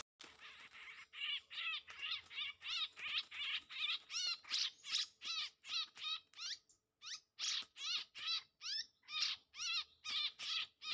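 Ochraceous bulbuls calling back and forth between a caged decoy and a wild bird. Short, harsh, scolding notes repeat about two to three times a second, with a brief pause near the middle.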